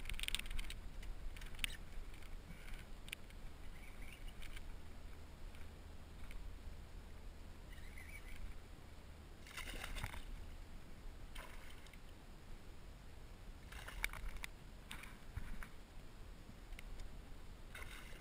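Water sloshing against a plastic kayak hull, with short splashes and knocks every few seconds, the loudest about ten and fourteen seconds in.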